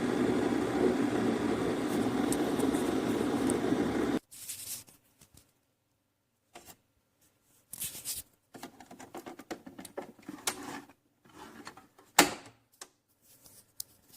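Keurig K-Classic coffee maker running with a steady mechanical hum that stops suddenly about four seconds in, followed by a scattering of light clicks and knocks.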